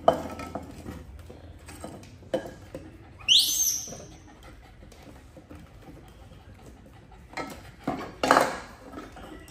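A pet monkey gives a short, high-pitched squeak that rises and then falls, among a few light knocks and handling noises.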